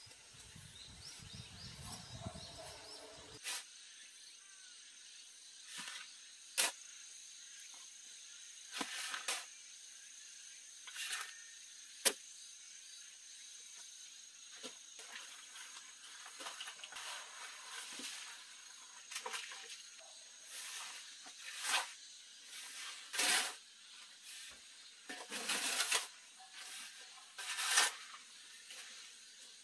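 A shovel and hand tool scraping through dry soil and sand on a plastic tarp. It comes as a series of short, rasping scrapes that grow denser and louder in the second half.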